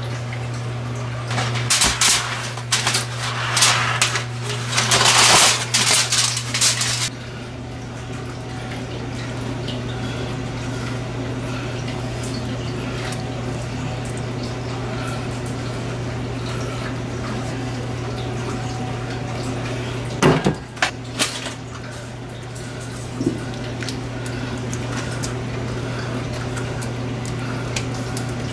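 A metal spoon scraping and clattering through potatoes in crumpled aluminium foil, a run of scrapes and crinkles over the first several seconds. Then quieter spooning of barbecue sauce over ribs in a foil pan, with a sharp cluster of metal clinks about two-thirds through. A steady low hum runs underneath.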